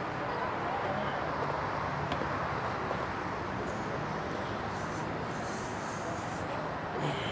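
Steady street noise: traffic running in the background with a murmur of voices.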